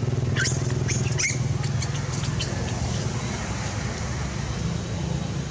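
Steady low motor hum, with a quick run of short, high squeaks and clicks during the first couple of seconds.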